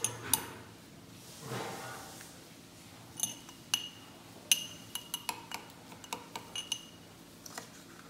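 A metal spoon clinking and tapping against a cut-glass tumbler and a steel bowl while spooning crushed Oreo crumbs into the glass. There is a string of sharp clinks, several ringing briefly, coming mostly in the second half.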